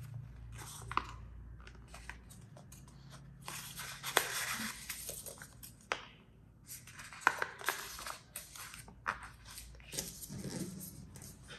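A crisp paper dollar bill being folded and creased by hand: irregular rustling and crinkling with several sharp crackles.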